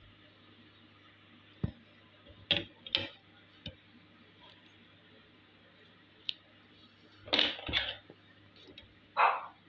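Handling sounds of a plastic ruler and paper on a table: a few separate short clicks, taps and rustles, with louder brief sounds near the end.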